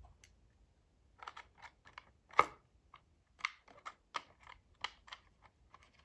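Plastic recoil starter pulley being pressed and turned by hand in its plastic starter housing, giving a run of irregular light clicks and knocks, the loudest about two and a half seconds in, as the pulley is seated so its spring hook catches.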